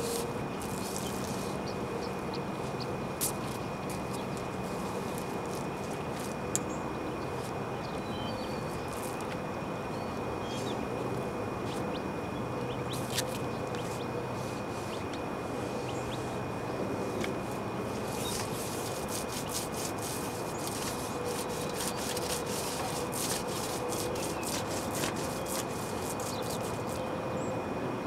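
Rooftop packaged air-conditioning unit running with a steady hum and fan whoosh, with scattered light clicks and scrapes from work on the roof beside it, thicker in the second half.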